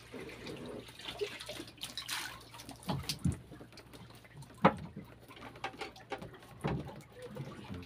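Water splashing and sloshing, with scattered sharp knocks and thuds and a faint steady low hum underneath.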